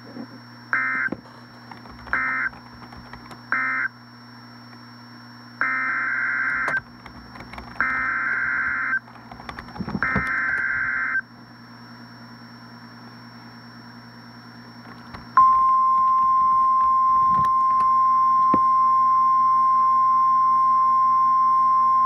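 Emergency Alert System data bursts on a weather-radio broadcast. Three short buzzy bursts of the end-of-message code come first, then the next alert's header sent as three longer buzzy bursts about two seconds apart. About two-thirds of the way in, the steady single-pitch NOAA Weather Radio alarm tone starts.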